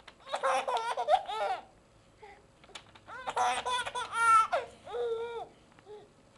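Baby laughing in two high-pitched bursts of over a second each, then a shorter laugh. The laughter comes as a menu card is flapped in front of his face.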